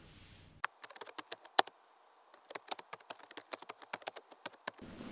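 Typing sound effect: a quick, irregular run of key clicks that starts about half a second in, pauses briefly around two seconds in, then goes on until just before the end, over otherwise dead silence.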